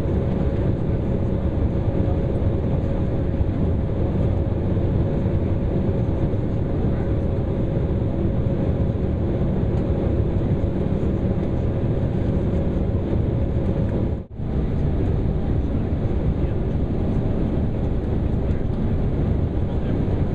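Steady cabin noise inside an Embraer E195 on the ground at taxi: its GE CF34 turbofans idling as a low hum with a faint steady whine. The sound drops out for an instant about fourteen seconds in.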